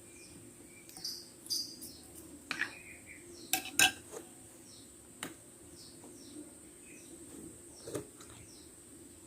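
Metal spoon clinking against a bowl of bakso meatball soup while eating, several sharp clinks with the loudest pair about three and a half to four seconds in. Short high chirps, like small birds, repeat in the background.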